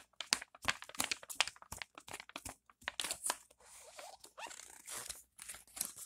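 Book page flipped rapidly back and forth by hand, a quick run of papery flaps and crinkles. The flaps turn into a softer, continuous rustle about halfway through.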